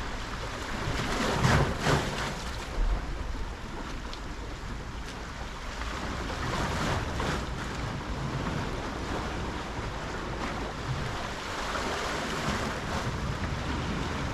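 Sea waves washing onto a beach, with wind buffeting the microphone.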